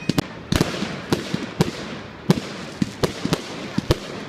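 Fireworks going off in a display: a dense, irregular string of sharp bangs and cracks, about a dozen, over continuous crackling.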